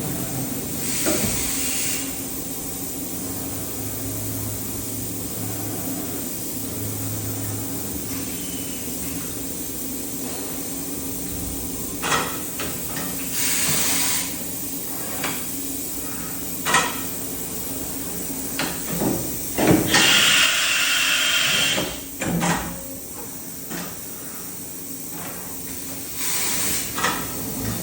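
Okuma MA-12500H horizontal machining center running with a steady hum, with four short hissing bursts (the longest about two seconds, near the end) and scattered clunks and knocks between them.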